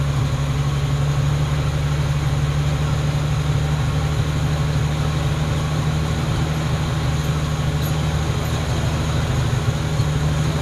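Dump truck engine running with a steady low drone while the truck is driven, heard from inside the cab.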